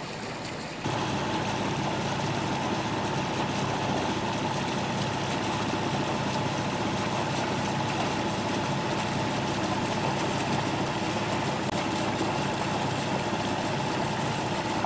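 A small sailing yacht's engine running steadily under way, a low drone with a constant whine over it. It gets suddenly louder about a second in.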